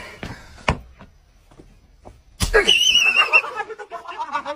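A sharp thump, then a quiet moment, then suddenly a man's high, wavering yelp lasting about a second, as the string yanks at his mouth. Chatter and laughter from the men around him follow.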